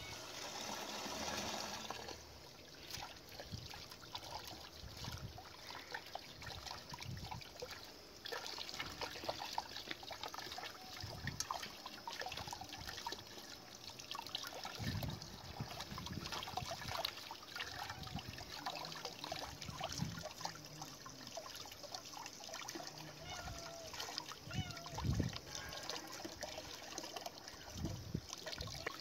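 Water running from a tap and splashing into a metal pot of water as pieces of raw rabbit meat are rinsed by hand, with small splashes and clicks throughout.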